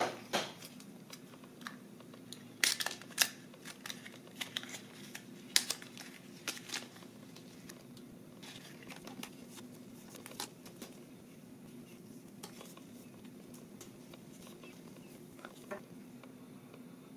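A small cardboard box of paper sticker flakes being opened and the stickers handled: a quick run of sharp clicks, snaps and crinkles in the first several seconds, then only scattered light taps. A steady low hum runs underneath.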